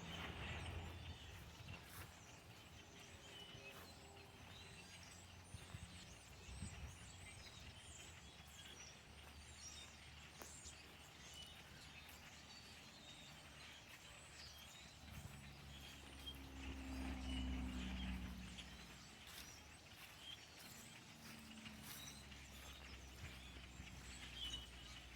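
A large mixed flock of grackles and red-winged blackbirds calling together, a dense, faint chatter of many overlapping chirps and squeaks. A low rumble swells and fades about two-thirds of the way through.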